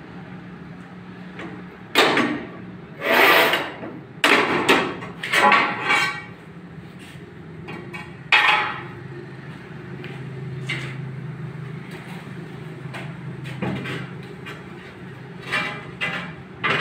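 Short scratchy bursts and knocks of a manual tile cutter and large ceramic tiles being worked and handled, several close together in the first half, then a few lighter knocks near the end over a steady low hum.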